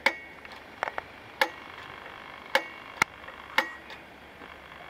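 Sharp metallic clicks, about seven in irregular succession, each with a brief ring: a center punch marking drilling points on an aluminium-alloy kitchen hatchet held in a steel bench vise.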